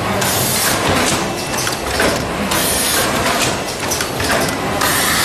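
Automatic cutting and sewing machine for PP woven sacks running, a loud, dense mechanical clatter and hiss that surges and eases unevenly as the feed rollers and conveyor draw the woven fabric through.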